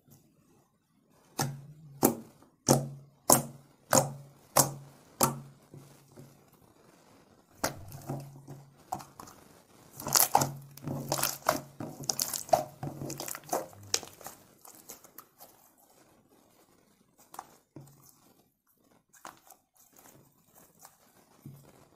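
Homemade glue-and-toothpaste slime being pressed and squeezed by hand, popping sharply about every two-thirds of a second, the pops growing fainter. Then comes a denser spell of crackling and squelching as the slime is worked, and a few faint squishes near the end.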